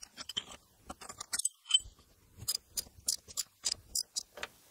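Socket ratchet clicking in short, uneven runs of metallic ticks as a freshly broken-loose T50 Torx seat bolt is backed out.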